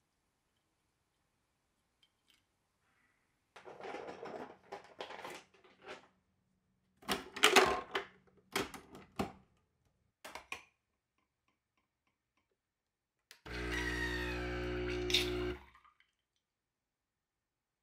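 An espresso machine being loaded by hand, with clattering and then a few sharp clunks as it is opened and closed; the clunks are the loudest sounds. Near the end its pump runs with a steady buzzing hum for about two seconds, pushing espresso out, then stops.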